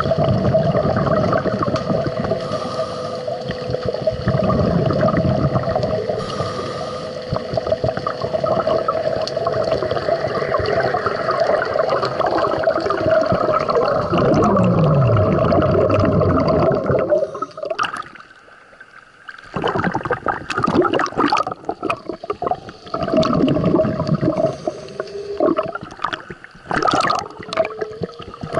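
Underwater bubbling and gurgling over a steady hum, with a short falling tone about fourteen seconds in. It drops away briefly about eighteen seconds in, then comes back in irregular gushes.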